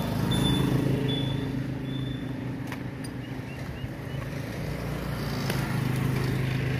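Motor vehicle engine running steadily at low revs. A short high-pitched beep repeats about every three-quarters of a second during the first two seconds.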